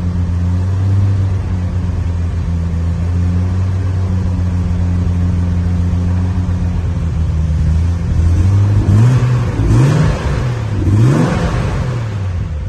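Triumph TR6's 2.5-litre straight-six idling fast just after a cold start on choke. Over the last few seconds it is revved about three times, each rev rising and falling quickly in pitch.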